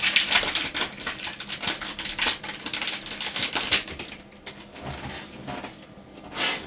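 Foil booster-pack wrapper crinkling and being torn open, a dense crackle for about the first four seconds, then quieter rustling with one more short crinkle near the end.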